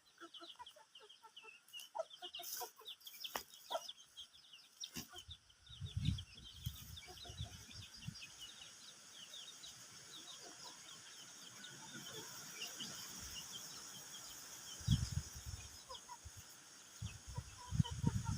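Chickens clucking and calling, many short high calls overlapping throughout, with a few clicks early on and occasional low thumps.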